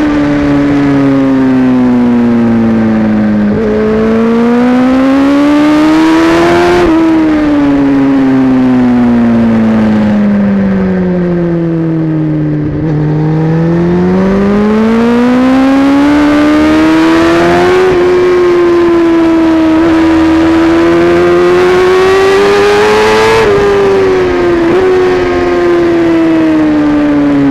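Kawasaki ZX-10R inline-four through an Akrapovic exhaust, ridden hard on track: the engine note falls for long stretches as the bike slows, then rises again under acceleration, with a few sudden steps in pitch at gear changes.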